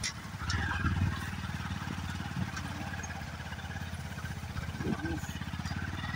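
Small motorbike engine running steadily at low speed on a rough dirt trail, a low even drone of firing pulses.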